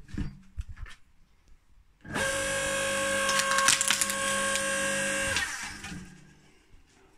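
Electric hydraulic log splitter: the motor starts about two seconds in and hums steadily for about three seconds while the ram drives a log into the splitting wedge. The wood cracks and splits midway, then the motor winds down. Light knocks of the log being handled come before.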